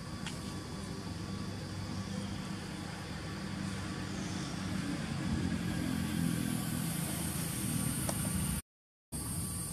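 Engine of a passing motor vehicle: a low hum that swells toward the middle and then eases. A high steady hiss comes in about halfway, and the sound drops out completely for about half a second near the end.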